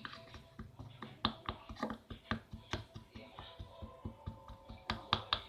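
Irregular sharp clicks, about three or four a second, of a stirring utensil knocking against a bowl as a stiff mix of tapioca starch and a little water is stirred and crushed.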